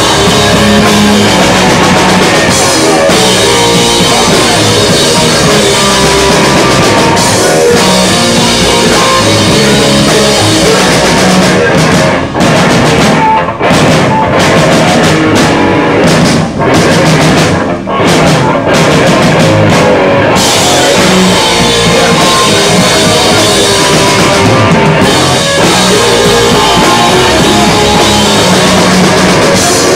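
Live rock band playing loud: distorted electric guitar and a pounding drum kit, recorded close and very hot. About halfway through the band plays a stop-start passage, with several short gaps between hits.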